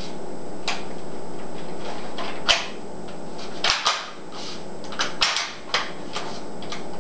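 SPAS-12 shotgun's fore-end being worked as its mode button is pushed in to switch from semi-automatic to pump action: a series of sharp metallic clicks and clacks, the loudest about two and a half seconds in and several close together about five seconds in.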